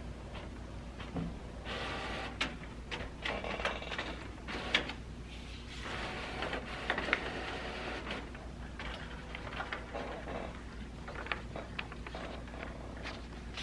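Canon inkjet printer running as it feeds a printed sheet out, with clicks from its mechanism; then paper rustling and crinkling as the sheet is pulled out and handled.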